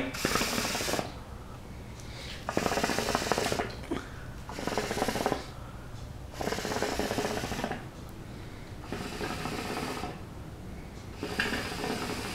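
A hookah drawn on in a series of short puffs, about six in all, each a second or so of breathy, bubbling noise as smoke is pulled through the water in the base.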